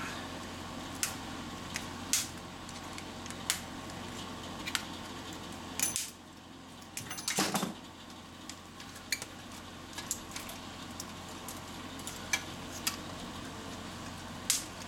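Wire cutters snipping wires inside a CRT television and tools clinking on its metal chassis: a dozen or so sharp clicks at irregular intervals, with one heavier clunk about halfway through, over a steady low hum.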